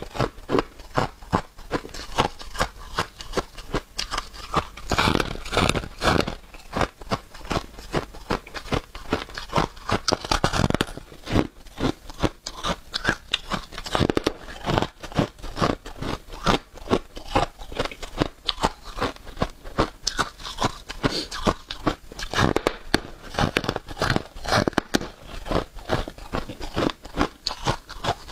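A slab of flaky freezer frost being bitten and chewed: a rapid, dense run of crisp crunches, several a second, with a few louder bites.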